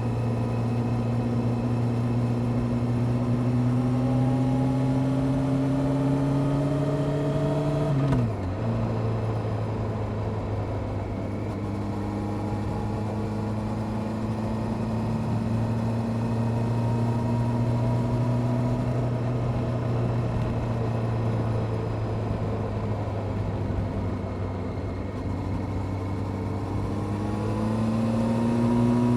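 Honda CBR600F Sport's inline-four engine with a Delkevic aftermarket exhaust, pulling up through the revs. A quick upshift about eight seconds in drops the pitch at once. It then runs steadily and starts climbing again near the end.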